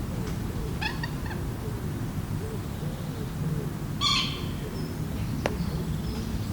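Birds calling around still water: soft, low notes repeat throughout, with two short, higher calls about a second in and about four seconds in. A steady low rumble runs underneath, and there is a single sharp click near the end.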